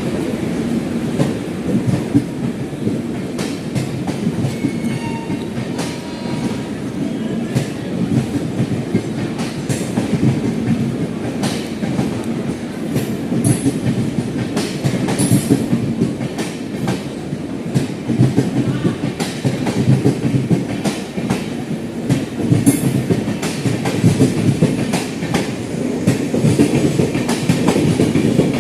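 Indian Railways express train's wheels running along the track: a steady rumble with a clickety-clack of wheels over rail joints. Brief high-pitched wheel squeals come in a few times.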